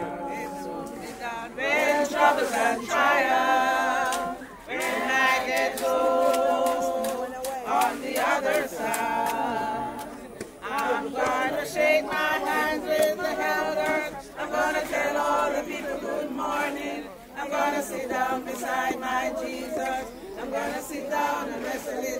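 A group of people singing a hymn together, unaccompanied, in long held phrases with short breaks between them.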